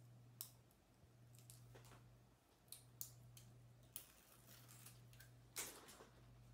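Faint scattered clicks and a short rustle of fingers picking at the backing paper of a small strip of grip tape, trying to peel it off.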